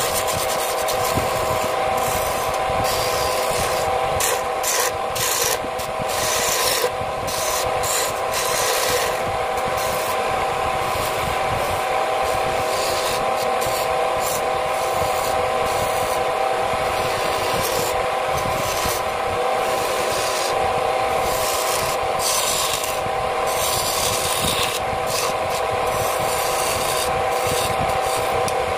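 Wood lathe running with a steady hum while a turning chisel scrapes and cuts the spinning wooden spindle in repeated passes. The chisel is a new, not yet sharpened blade made from the steel of a Mitsubishi L300 coil spring.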